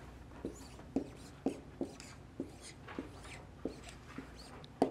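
Dry-erase marker writing on a whiteboard: about a dozen short strokes, one after another, as letters are drawn.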